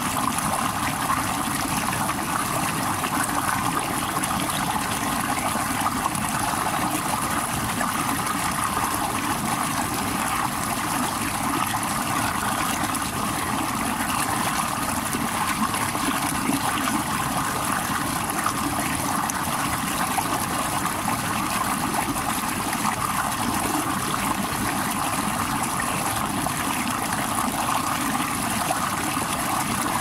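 Small stream spilling over rocks in a short cascade: a steady rush of falling water.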